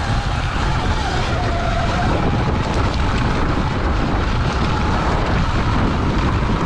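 Wind buffeting the microphone on a moving electric dirt bike, with the motor's thin whine wavering in pitch with the throttle, clearest in the first second or so.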